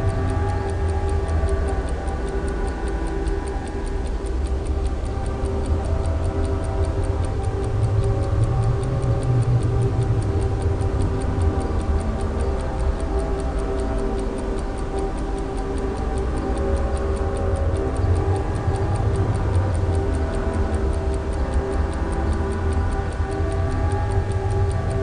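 Suspense film underscore: a sustained low drone of held tones with a steady, clock-like ticking throughout.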